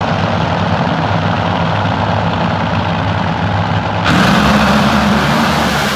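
Two drag racing cars doing burnouts at the starting line: engines running loud and steady, then about four seconds in the sound jumps suddenly louder and harsher as the throttle goes down and the rear tyres spin and smoke.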